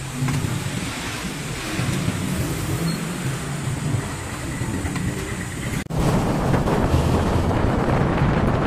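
Steady background noise with no clear single event for about six seconds. Then a sudden cut to louder, continuous road-riding noise: wind buffeting the microphone over engine and traffic sound while moving along a road.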